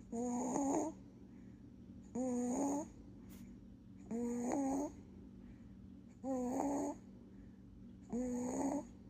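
A two-month-old baby snoring: five short, pitched snores at an even pace of about one every two seconds, each lasting under a second.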